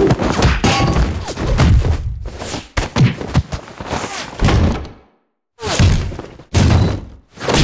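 Sound effects of a film fist fight: a dense run of heavy, cartoonish punches, thuds and swishes that are hard to tell apart, broken by a short gap about five seconds in.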